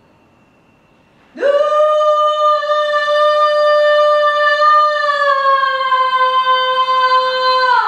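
A woman's voice singing one long, high wordless note. It scoops up into the note about a second and a half in, holds it for about six seconds while sagging slightly in pitch, and breaks off with a short fall near the end.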